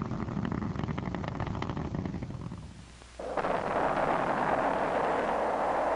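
Crackling rocket roar of a Titan IV in ascent, fading away over the first three seconds. Then a Saturn IB's eight H-1 first-stage engines at liftoff cut in suddenly as a dense, steady rush.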